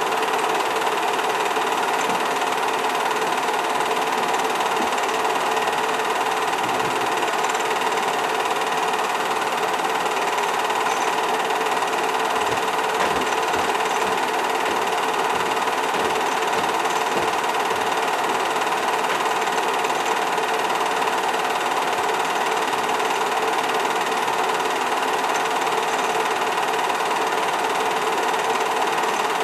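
8mm film projector running, a steady mechanical whir with no change in speed or level.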